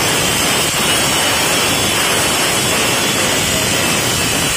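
Angle grinder's cutting disc cutting through a rusted hydraulic pipe: a loud, steady grinding noise without a break.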